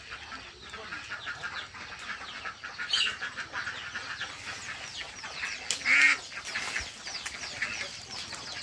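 Animal calls: many short, rapid chirps throughout, with a louder squawk about six seconds in.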